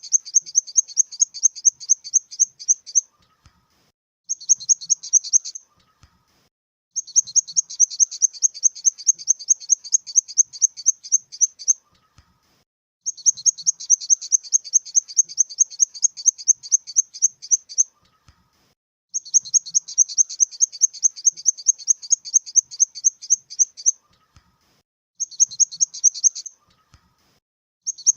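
Grasshopper stridulating: high chirping pulses, about four a second, in bouts of five to six seconds separated by pauses of about a second, with two shorter bouts in between.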